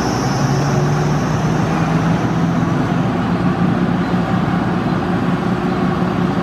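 A small engine running steadily, with an even low hum and no change in speed.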